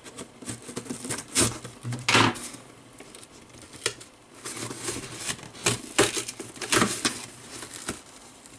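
Cardboard shipping box being torn open by hand: a series of irregular short rips and scrapes of cardboard and packaging.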